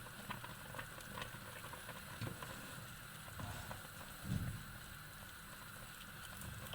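Strawberry jam simmering in a pot on the stove, with a low steady bubbling and light clicks of a spoon stirring it. There is a soft low thump about four seconds in.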